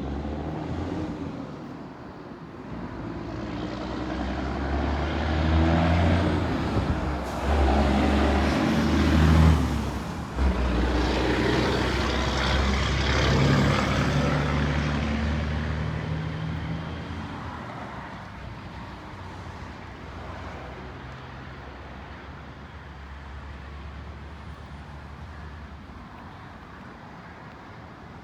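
A motor vehicle's engine goes by, a low hum that grows louder over several seconds, peaks, then slowly fades away.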